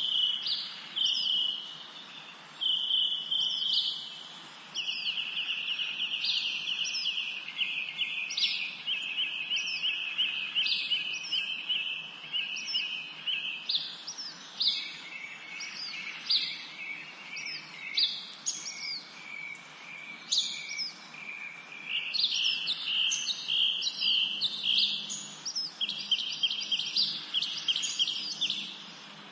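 Birds chirping and trilling without pause: fast high-pitched trills overlaid with repeated short, downward-sweeping chirps, with brief lulls about two and four seconds in.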